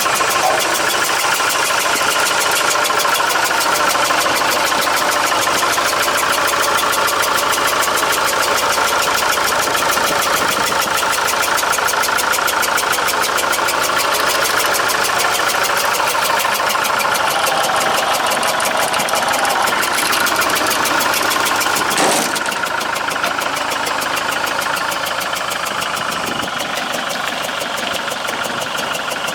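Iveco F1C 3.0-litre four-cylinder diesel engine of a Boki HY1251 municipal vehicle running steadily with a clatter, the engine fault the seller lists along with low power. A single sharp click sounds about 22 seconds in, after which it runs a little quieter.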